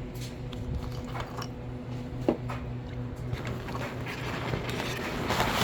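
Small clicks and rustling of a microphone cord and plug being handled and plugged into a mobile radio, with one sharp click about two seconds in and more rustling near the end, over a steady electrical hum.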